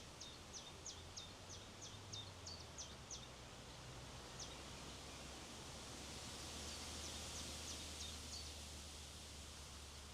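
Steady wind hiss with a small bird calling: a quick run of short, high, down-slurred chirps, about four a second for the first three seconds, one more a little later, and a few again near the end.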